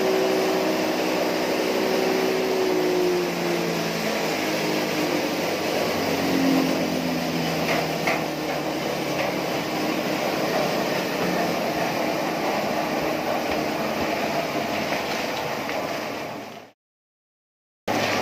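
Electric posho mill, a belt-driven hammer mill, running steadily as it grinds maize and cassava into flour: a loud, even mechanical din. Near the end the sound drops out to silence for about a second, then returns.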